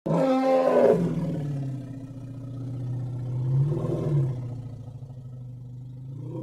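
Elephant calling: a loud call that starts suddenly and falls in pitch over about a second, then settles into a long low rumbling roar that swells twice.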